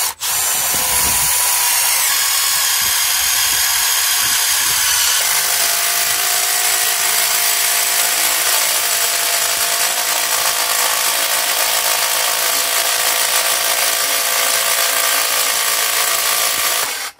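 Milwaukee M12 FUEL 3453 impact driver on its second speed setting, driving a Hilti 1/4-inch hex step drill bit through 4.5 mm steel angle. It runs without a break for about seventeen seconds, its tone shifting about two and five seconds in, then stops abruptly as the hole is finished.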